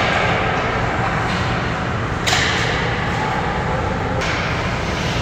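Ice hockey skate blades scraping and carving across rink ice: a long hiss that stops about a second in, then another from a little past two seconds to about four seconds in, the second starting with a light knock. A steady low rumble of the rink lies underneath.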